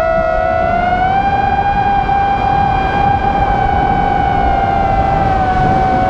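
Brushless motors and propellers of a Vortex 285 FPV racing quadcopter whining at a steady high pitch, heard from the camera on board. The pitch rises slightly about a second in, holds, and eases slightly near the end as the throttle changes, over a low wind rumble.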